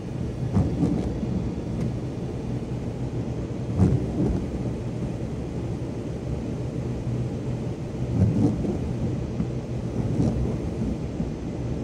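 Steady low rumble and hum inside a parked car's cabin, with a few dull thumps, the loudest about four seconds in.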